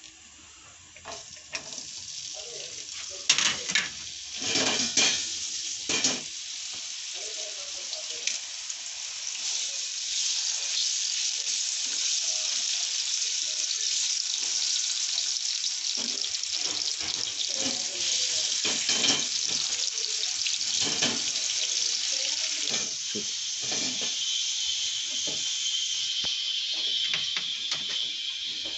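French-fry potato strips frying in hot oil in a nonstick pan. The oil spatters loudly a few seconds in as the fries go in, then settles into a steady sizzle, with occasional clicks of wooden tongs against the pan.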